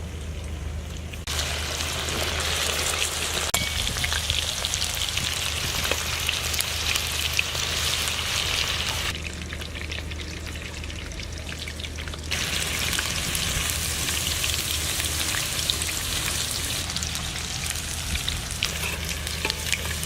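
Food deep-frying in hot oil in a kadai, a dense crackling sizzle. It starts abruptly about a second in, cuts out for about three seconds in the middle, then comes back, over a steady low hum.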